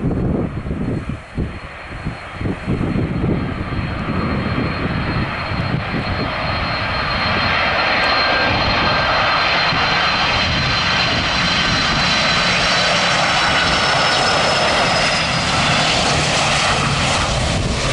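Boeing 747-400 freighter on final approach, its four turbofan engines growing louder over several seconds and then holding a steady, loud rush. A thin high whine in the engine noise slowly drops in pitch as the jet passes.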